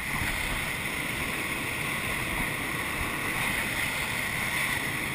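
Steady rush of airflow around a glider's canopy and cockpit in unpowered flight, heard from inside the cockpit, with a hiss and low rumble from wind on the microphone.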